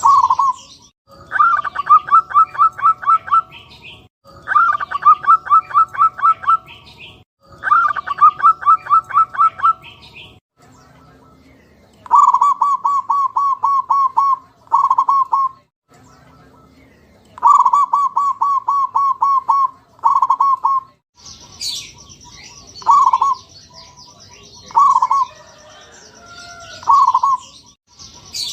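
Zebra doves (perkutut) cooing in bursts of rapid staccato notes, each burst lasting a couple of seconds. Faint high chirping sits behind them. From about two-thirds of the way through come single coos about every two seconds over a steady high-pitched whine.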